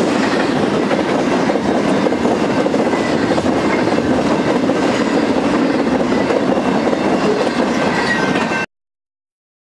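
Intermodal freight train's cars rolling past at speed, a loud, steady noise of steel wheels on rail, cutting off abruptly near the end.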